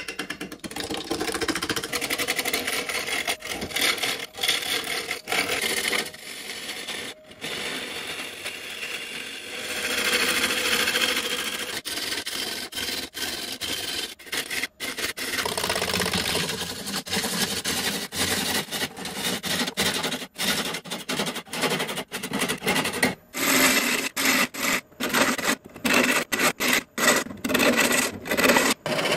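A steel turning tool scraping and cutting into an irregular, out-of-round wood blank spinning on a wood lathe: a continuous rasping that keeps breaking off, as the edge meets and leaves the uneven wood. In the last few seconds it breaks up into quick short chops.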